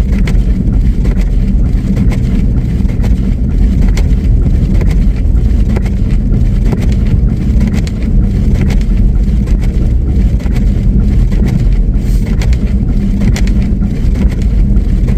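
Four-wheel-drive truck driving on a snow-covered road: a loud, steady low rumble of engine and tyres, with frequent small knocks and ticks.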